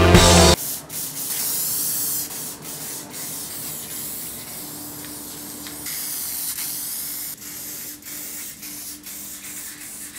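Montana 94 aerosol spray paint can hissing as paint is sprayed in several bursts, the louder ones about a second in and again around six seconds. Music cuts off about half a second in.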